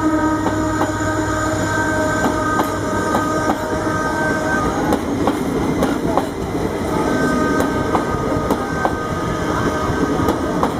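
Horn of an EMD WDP-4B diesel locomotive sounding in two long blasts, the first ending about five seconds in and the second starting about two seconds later. Under it, a passing passenger train rumbles and its wheels clack over the rail joints.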